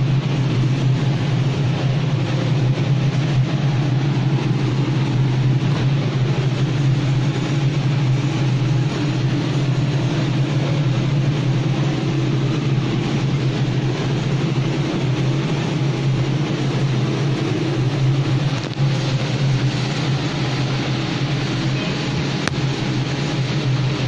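Steady mechanical hum and rumble, even throughout, with a strong low drone and a hiss over it.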